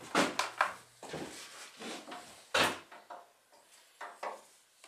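Knocks and clunks of a metal resin tin and plastic containers being handled and lifted on a workbench, the loudest about two and a half seconds in.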